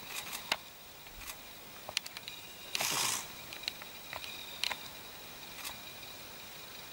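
African porcupine with its quills raised, giving scattered dry clicks and rustles from quills and feet on dry leaves, with a short rustling burst about three seconds in, over a faint steady high tone.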